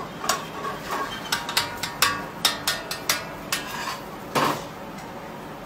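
Metal spoon clinking against a ceramic plate as sauce is spooned over fish: about a dozen sharp, irregular clinks with a short ring, the last one near the end of the fourth second a little fuller.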